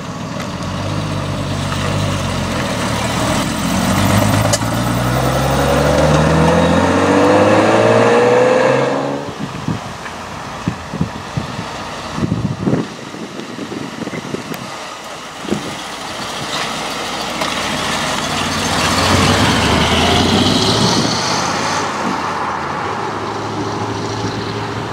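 Classic sports cars pulling away one after another. First a Triumph TR6's straight-six accelerates off, rising in pitch and cutting off about nine seconds in. After a quieter stretch with scattered clicks, a C3 Chevrolet Corvette's V8 accelerates past.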